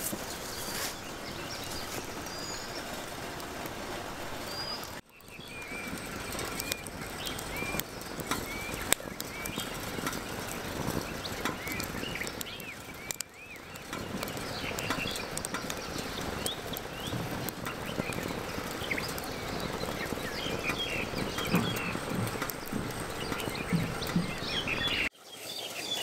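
Wood fire burning on a titanium campfire grill, crackling and popping with a steady hiss of flame. Birds chirp in short calls over it.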